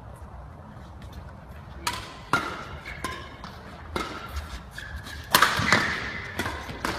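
Badminton rackets smacking shuttlecocks in a fast defensive drill: sharp hits begin about two seconds in, then come quicker, loudest from about five seconds in.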